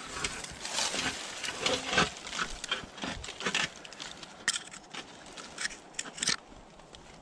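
Dry fallen leaves and brush crunching and rustling underfoot, with scrapes from a climbing tree stand's platform being stepped on. A close, busy string of short crackles that thins out about six seconds in.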